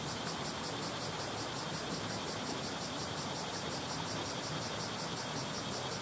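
Shallow stream flowing steadily over stones, a continuous splashing rush with a little force behind it. Cicadas sing over it as a high, rapidly pulsing buzz.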